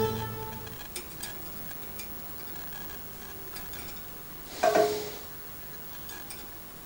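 Background music fading out, then scattered light clicks and taps, with one short, louder noise about two-thirds of the way through.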